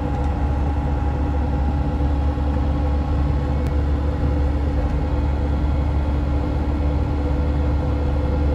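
Land Rover Defender's 300Tdi diesel engine and tyres droning steadily at motorway cruising speed, a deep rumble with a few steady engine tones above it.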